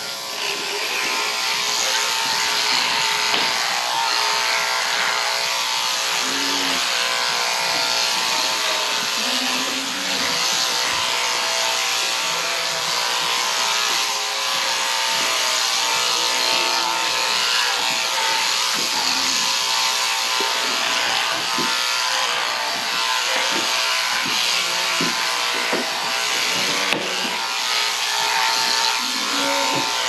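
Electric sheep-shearing handpieces running steadily as two shearers cut the fleece off sheep, a continuous even machine buzz with the comb and cutter working through wool.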